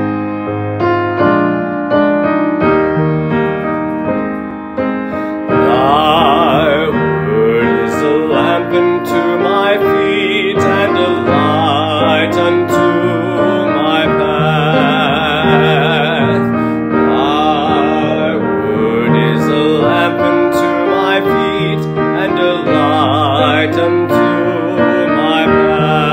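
Piano playing a hymn, joined about five and a half seconds in by singing with a clear vibrato.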